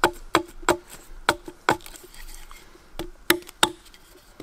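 Gransfors Wildlife Hatchet making light, quick chops into a wooden tent peg, thinning its sides: about eight sharp knocks in quick succession, each with a brief ring, a pause of about a second, then three more.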